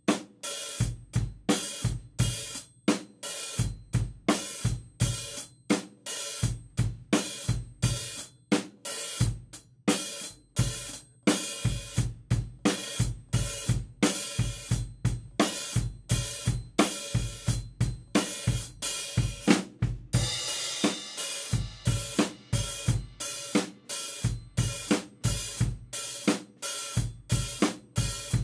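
Acoustic drum kit playing a steady groove of bass drum, snare and hi-hat, with the hi-hat opened here and there by lifting the left foot for a short 'psst' hi-hat bark and then closed again. A longer cymbal wash rings about 20 seconds in.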